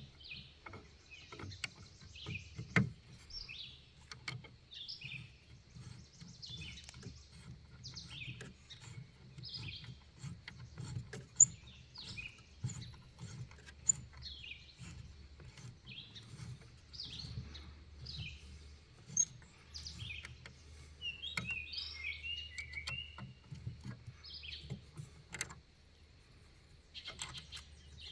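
Small birds chirping, short high calls about once a second, over a low steady rumble. A few sharp clicks or knocks stand out, the loudest about eleven seconds in.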